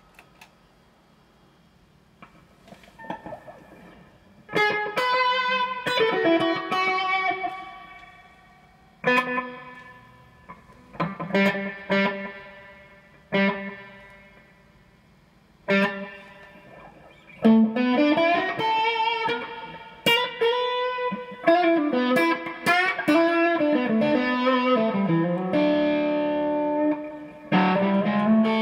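Electric guitar (a custom Stratocaster) played through effects pedals. After a few quiet seconds, single chords are struck and left to ring and decay. From about halfway it turns into a busier run of notes with string bends.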